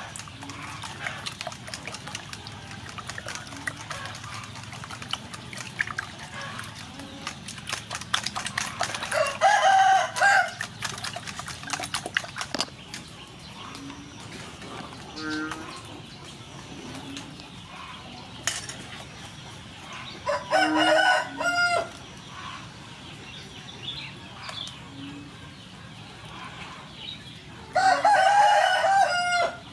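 A rooster crowing three times, about ten seconds in, about twenty-one seconds in and near the end, each crow lasting well over a second. Under it, the light rapid clicking of a wire whisk beating eggs against a metal bowl.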